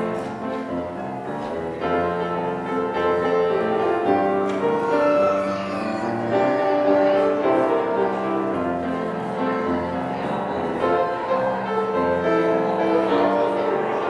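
Instrumental keyboard music: slow held chords with a melody line on top, the notes changing about once a second.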